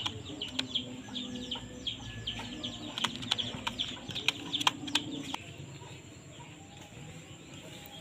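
Birds chirping in quick, short falling notes, with sharp clicks among them; busy for about five seconds, then quieter.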